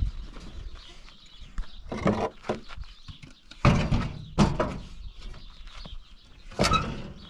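Several separate wooden knocks and thumps, with scraping and scuffing between them, as a plank door and pieces of wood are handled.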